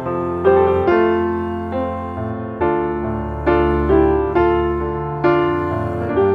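Background piano music: slow chords struck about once a second, each ringing and fading.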